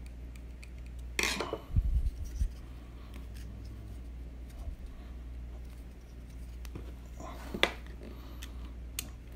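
Small clicks and scrapes of a Spyderco Manix2 Lightweight folding knife and a small screwdriver being handled while its body screws are fitted, with a few dull thumps about two seconds in and sharp clicks near the end, over a steady low hum.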